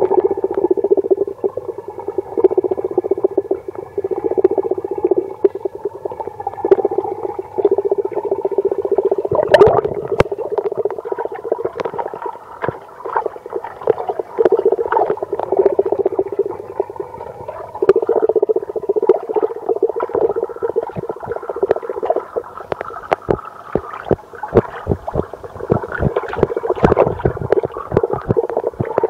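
Sound heard underwater in a trout tank: a steady muffled hum with many short clicks and pops on top, coming thicker from about ten seconds in.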